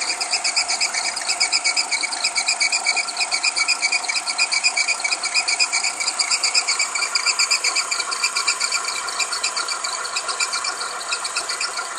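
A high-pitched, rapidly pulsing whistle from the timing drive of a running VW 1.4 CGGA engine, heard while it is still cold. It dies away once the engine warms up. The whistle fades slightly near the end.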